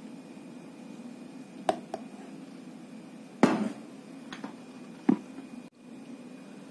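Knocks on a wooden cutting board as a mixer jar and a glass are set down and moved: two light clicks, then a sharp knock about three and a half seconds in and another about five seconds in, over a low steady hum.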